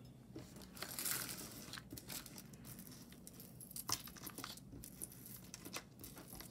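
Quiet rustling and scattered small clicks as beaded necklaces are handled.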